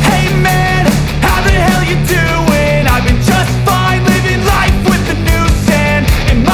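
Loud rock music with a driving drum beat and distorted guitars.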